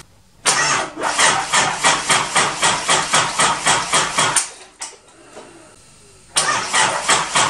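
Nissan ZD30 3.0-litre four-cylinder diesel being cranked by its starter, an even chugging of about four compression strokes a second for about four seconds without firing. After a two-second pause the cranking starts again near the end.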